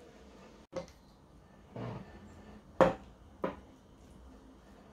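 Kitchen utensils, a fork and a silicone spatula, clicking and tapping against a metal springform ring and a dish while salad layers are spread: a few short sharp taps with a softer scrape just before two seconds in, the loudest tap about three seconds in.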